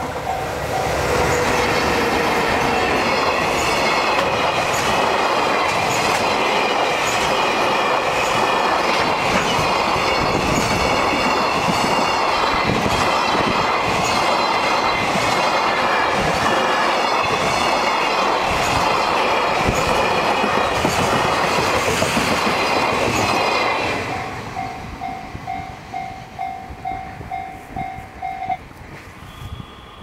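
JR Freight EH500 electric locomotive and a long train of container flatcars passing close by, loud and steady for over twenty seconds, the wheels clacking over rail joints. As the last wagons go by, the level-crossing bell is heard again ringing in quick pulses, about two a second, until it stops near the end.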